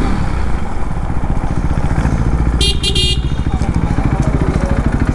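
KTM Duke 390 single-cylinder engine running at low revs, its firing pulses coming evenly. A brief high-pitched squeal cuts in about two and a half seconds in.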